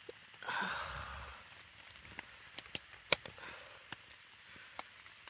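Quiet rustle of tent fabric and gear about half a second in, then scattered light ticks of raindrops and drips on the tent.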